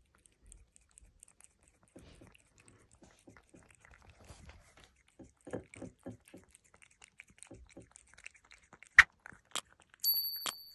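A cat eating from a saucer, with soft wet chewing and lapping in quick, irregular clicks that grow stronger partway through, then two sharper clicks. Near the end a short electronic chime comes in.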